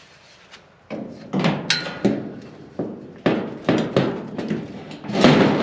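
Tripod deer feeder parts knocking and clanking together as a part is worked into place: about ten irregular knocks starting about a second in, one with a brief metallic ring, the loudest near the end.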